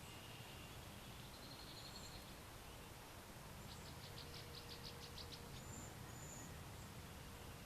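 Faint outdoor ambience with distant birds singing: short high whistles, then a quick run of about ten chipping notes around the middle, and two brief slurred whistles after it, over a low steady background noise.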